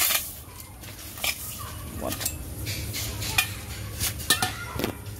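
Push broom with stiff plastic bristles sweeping a wet, sandy floor: irregular scraping strokes with a few sharp knocks.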